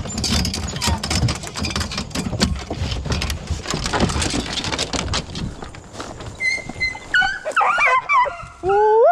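Metal clatter and clicking of an aluminium dog box's latch and door as the hounds are let out of a pickup bed, then excited hounds whining and yelping over the last few seconds, ending in a rising whine.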